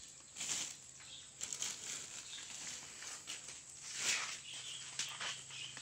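Soft, scattered rustling and handling of plastic-bagged clothing, with a faint low steady hum joining about a second and a half in.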